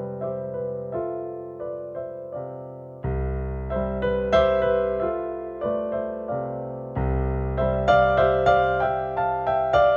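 Solo piano ballet-class accompaniment: a slow, lyrical phrase of struck chords and melody notes, growing fuller and brighter with deep bass notes struck about 3 s in and again about 7 s in.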